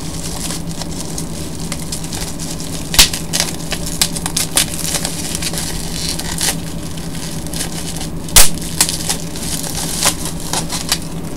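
Plastic packaging being pulled open and crumpled by hand: a run of crinkling and crackling with two loud sharp snaps, about three seconds in and again near eight and a half seconds. A steady low electrical hum runs underneath.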